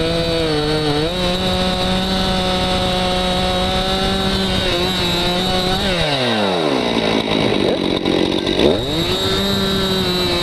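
Stihl MS261 C-M chainsaw, a 50 cc two-stroke, running at full throttle while cutting through a downed tree, its pitch steady. About six seconds in the revs drop away toward idle, then climb quickly back to full throttle a couple of seconds later.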